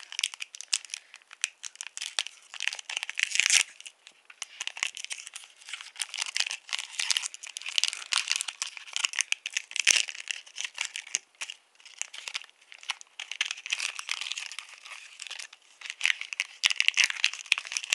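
Foil wrapper of a Pokémon trading card booster pack crinkling and tearing as it is pulled open by hand: a dense run of crackles with short pauses.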